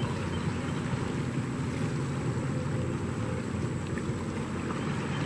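Steady low rumble of motorboat engines on the lake, with no clear change or single event.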